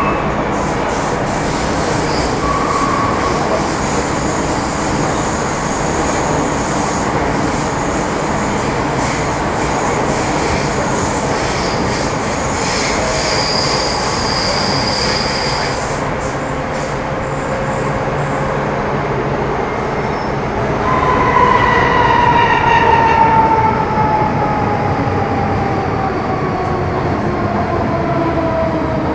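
Interior running noise of an MTR Metro Cammell M-Train subway car in a tunnel: steady wheel and rail rumble, with a brief high wheel squeal near the middle. About three-quarters of the way in, a whine of several tones from the GEC GTO chopper traction equipment sets in and falls steadily in pitch as the train slows.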